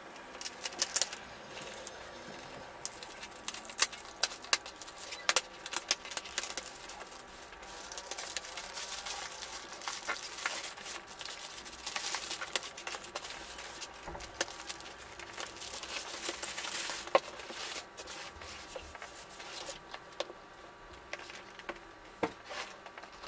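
A parcel being unwrapped by hand: black plastic wrapping and brown packing tape torn and crinkled off a cardboard box, in many sharp crackles that are densest in the middle.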